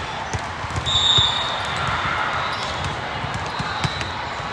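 Busy volleyball gym: volleyballs thudding irregularly on the hardwood court floor over a steady murmur of voices, with a short high squeak about a second in.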